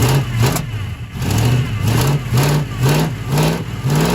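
An engine revving in quick, repeated blips, its pitch rising with each one.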